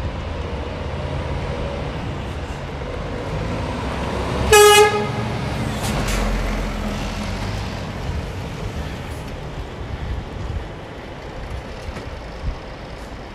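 A heavy truck's diesel engine running steadily, with one short horn toot about four and a half seconds in.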